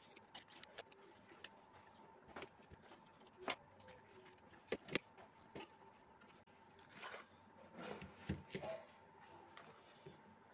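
Faint crinkling, tearing and scraping of a foil-lined drink carton being peeled off a block of frozen mango drink, with scattered sharp clicks, the loudest about three and a half and five seconds in.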